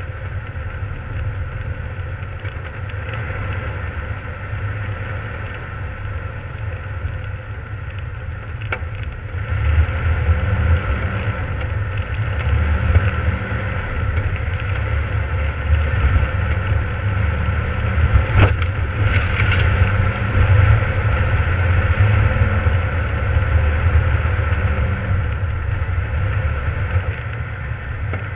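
Jeep driving on a snowy dirt trail: engine and tyre noise as a steady low rumble that grows louder about ten seconds in. A sharp knock comes about nine seconds in and another around eighteen seconds.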